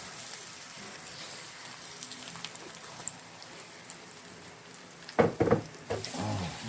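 Battered jeon pancakes frying in oil in a pan, a steady sizzle. About five seconds in, a brief louder sound cuts across it, with a smaller one a second later.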